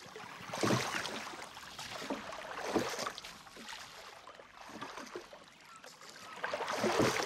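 Wooden oar of a small canal boat being worked by a standing boatman: water swishing and splashing with each stroke, swelling about every two seconds, with light knocks from the oar.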